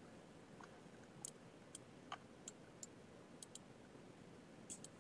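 About nine faint, sharp computer mouse clicks, scattered and some in quick pairs, over a quiet hiss.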